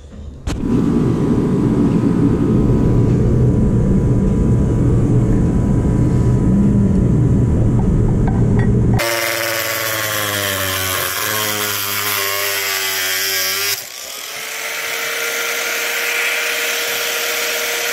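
A loud low rumbling noise for about the first half, then a handheld power tool running steadily against a cast-iron housing, with a short dip about two-thirds through before it runs on with a steady hiss and hum.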